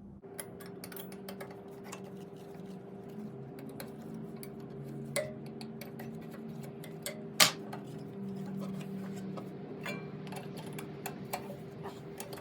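Scattered small metallic clicks and taps as a T-handle Allen key backs out the screws of a planer's cutter-head blade clamp and magnets lift the knife out. There is one sharp click about seven seconds in, over a steady faint hum.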